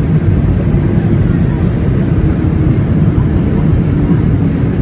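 Cabin noise of a Boeing 737-800 on its landing rollout, heard inside the cabin by the wing: a loud, steady rumble from its CFM56 engines and the runway, with a hum that slowly falls in pitch as the aircraft slows.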